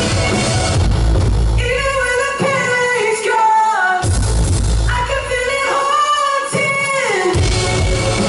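A live pop-rock song with a singing voice, heard in a large hall. The bass drops out twice, leaving the voice and higher instruments.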